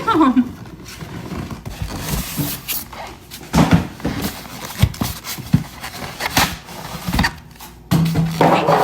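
Cardboard box being torn open by hand: irregular ripping, rustling and knocks of cardboard and packing, with a short hum near the end.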